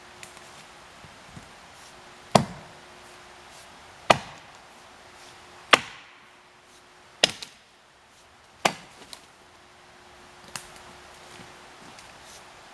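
Jersey-pattern axe with a 3.5-pound head chopping into felled white ash: five sharp strokes about a second and a half apart, then a lighter one near the end.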